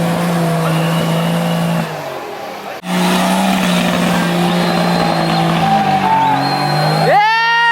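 Competition 4x4's engine running hard at steady high revs, easing off about two seconds in, then pulling hard again. Near the end comes a loud, high whoop from a spectator.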